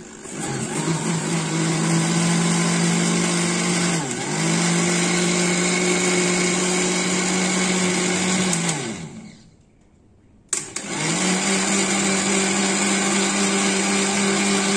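Electric blender grinding boiled bathua greens. The motor spins up and runs steadily, sags briefly in speed about four seconds in, and winds down after about eight and a half seconds. After a short pause it starts again for a second run.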